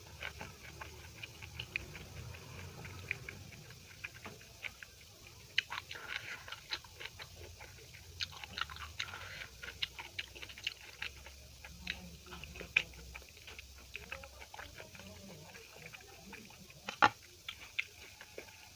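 Close-up chewing and mouth sounds of a person eating soft home-cooked Indian food (dal and rice, vegetable curry, chapatti), with irregular wet smacks and clicks. There is one sharper click about a second and a half before the end.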